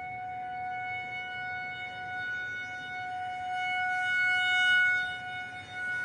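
Outdoor tornado warning siren sounding a steady, unwavering tone during a scheduled test. It swells louder about four seconds in, then falls back just before the end.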